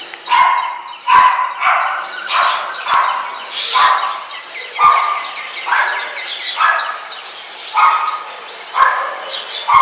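An animal calling over and over: about ten short, loud calls, roughly one a second, each starting sharply.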